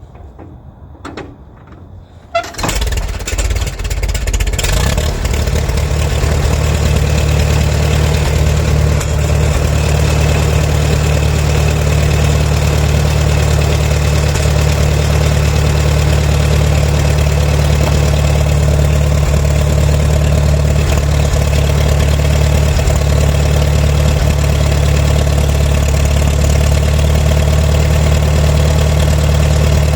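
McCormick W6 tractor's four-cylinder engine catching suddenly a couple of seconds in, after a few light clicks, then running at a steady idle.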